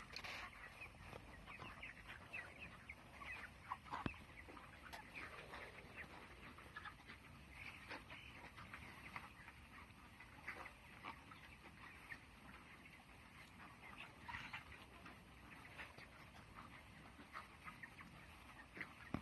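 A flock of broiler chickens about three weeks old, faintly peeping and clucking, with many short calls scattered throughout.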